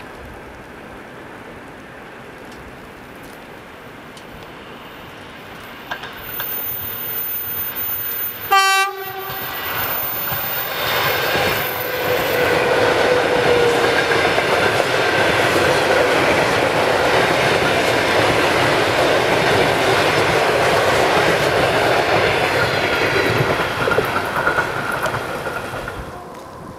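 ED4M electric multiple unit approaching and passing close by: it gives one short horn blast about nine seconds in, then the loud rush and wheel clatter of its carriages goes by for about fifteen seconds.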